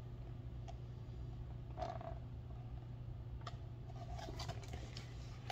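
Faint handling of a picture book's pages as it is held up: a few short clicks and soft rustles over a steady low hum.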